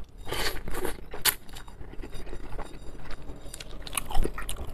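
A forkful of instant noodles slurped and chewed with the mouth open, close to the microphone, with short wet mouth noises and a few sharp clicks of a metal fork.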